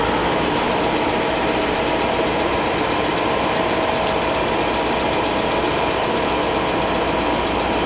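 Overbeck 600RU hydraulic universal cylindrical grinder running under power: a steady machine whir from the spinning 20-inch grinding wheel and hydraulic drive, with a thin whine held on one pitch.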